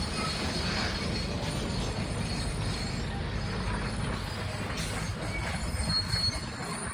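Steady rumble of heavy construction machinery at roadworks, with a few faint high metallic squeaks.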